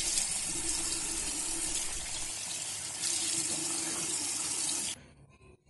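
Tap water running steadily into a sink during face washing, cutting off suddenly near the end.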